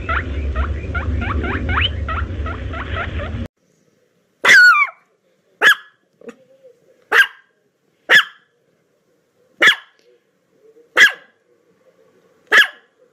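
A small dog barking: seven short single barks about every second and a half, the first one longer and falling in pitch. Before them, a quick run of high squeaks over a low outdoor rumble cuts off abruptly.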